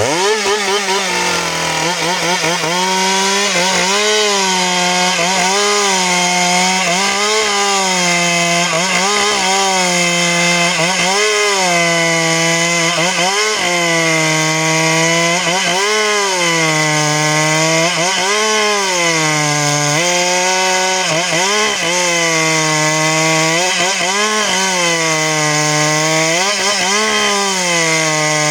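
Two-stroke chainsaw running at full throttle, cutting through a log; the engine pitch sags as the chain bites under load and recovers, over and over, about every two seconds.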